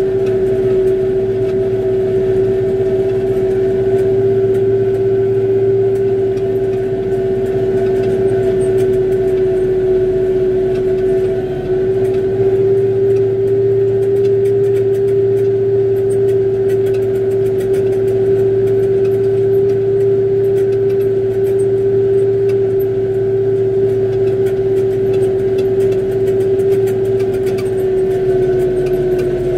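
Kubota tractor engine running steadily under load, driving a front-mounted snowblower that throws snow out of its chute. Over the machine noise sits a constant droning tone, with only a brief dip in loudness about a third of the way through.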